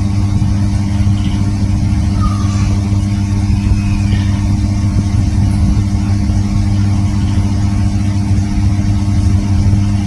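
Steady low machine hum, like a motor running at a constant speed, with no rise or fall.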